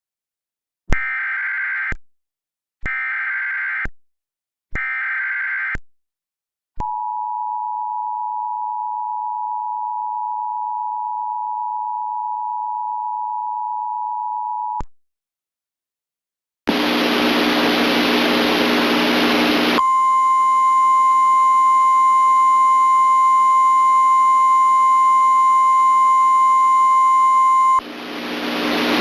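Emergency Alert System tornado-warning tones: three short bursts of SAME header data, then the two-tone EAS attention signal held steady for about eight seconds. After a brief gap a hiss of static comes in, and a single steady alert tone sounds over it for about eight seconds and cuts off near the end, leaving the hiss.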